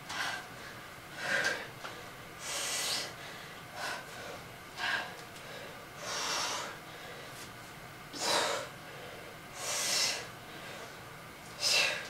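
A woman breathing hard with effort while pressing dumbbells: about nine sharp, breathy puffs, some longer and louder, spaced a second or so apart and in time with the press repetitions.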